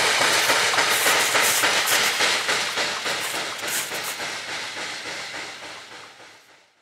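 Loaded coal cars of a freight train rolling past, with a steady clatter of wheels over the rail joints and a high rushing hiss. The sound fades steadily from about halfway through and dies away near the end as the last car goes by.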